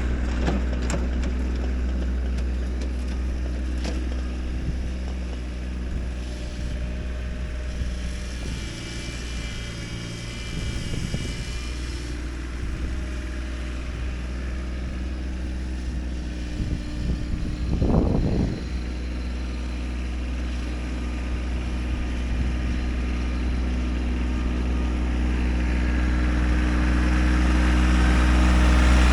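Kubota tractor's diesel engine running steadily while doing dirt work, with a brief louder surge about eighteen seconds in and growing louder near the end.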